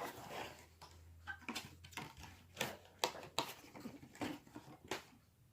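Scattered light clicks and taps of small carved wooden cat figurines being handled and set down.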